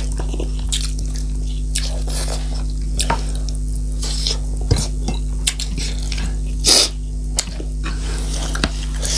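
Close-miked eating sounds: wet chewing and scattered small clicks of food against a plate, over a steady low hum.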